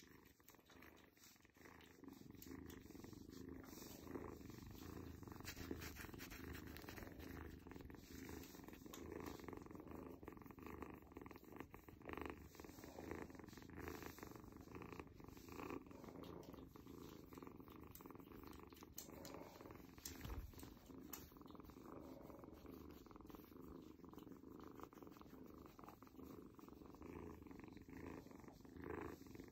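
A kitten purring steadily while it is scratched on the head and behind the ear.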